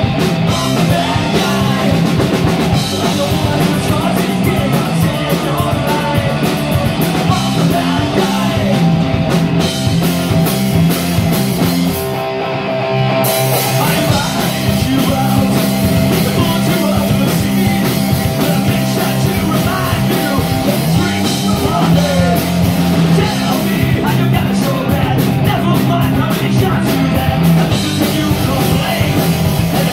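Punk rock band playing live: distorted electric guitar, bass guitar and drum kit with a singer at the microphone. About twelve seconds in, the cymbals and low end drop out for a moment before the full band comes back in.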